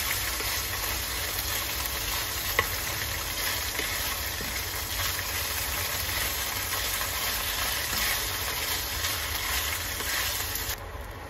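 Tofu cubes sizzling as they fry in a non-stick pan, stirred with a wooden spatula, with one sharp knock about two and a half seconds in. The sizzle drops away abruptly just before the end.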